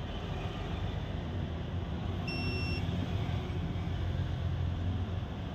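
A single short electronic beep, about half a second long, sounds a little over two seconds in over a steady low background hum.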